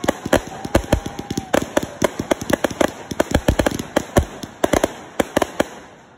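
Consumer aerial fireworks firing in quick succession: a dense, irregular string of sharp bangs and crackles from shots launching and bursting overhead. The bangs thin out and stop near the end.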